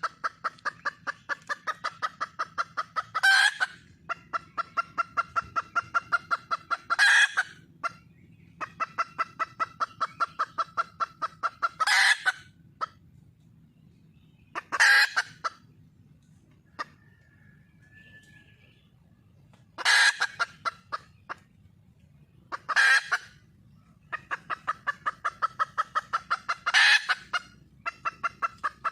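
Red junglefowl hen calling: a loud harsh squawk every few seconds, each followed by a fast, even run of short clucks, about four a second.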